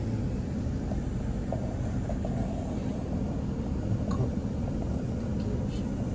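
Car's engine and road noise heard inside the cabin: a steady low rumble as the car moves in traffic.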